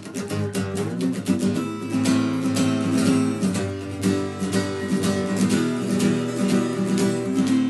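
Guitar cover of a punk-rock song's rhythm part, strummed fast and steadily, with no vocals or solo line.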